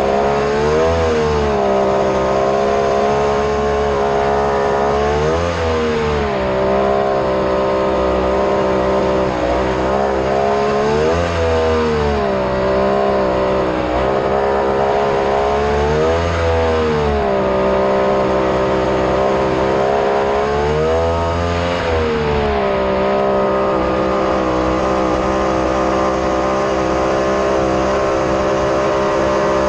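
Mini jet boat engine running steadily. Its revs rise and fall back about every five seconds, five times, then it holds a steady pitch.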